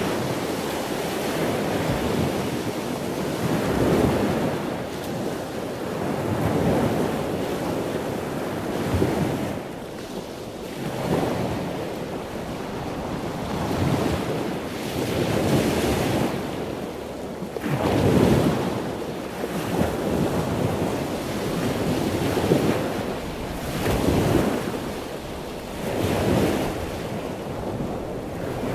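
Ocean surf washing onto a sandy beach, swelling and fading about every two to three seconds, with wind noise on the microphone.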